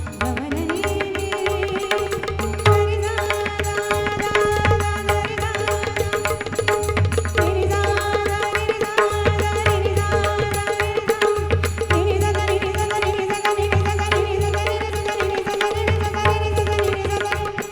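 Indian devotional music: tabla and pakhawaj drumming steadily under a held melody line that slides up in pitch near the start and again about halfway through.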